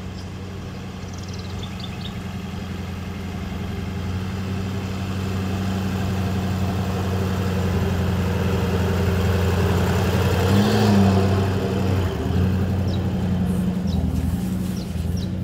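A 4WD vehicle's engine running steadily as it drives up a sand track, growing louder as it approaches and passing close by about ten to eleven seconds in.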